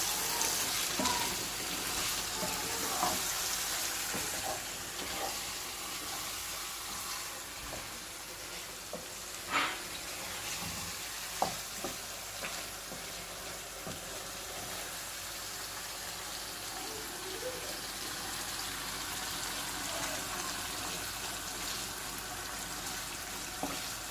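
Chicken bhuna sizzling in a pot on medium heat as it is stirred, with a few sharp knocks of the utensil against the pot, the loudest about ten seconds and eleven seconds in.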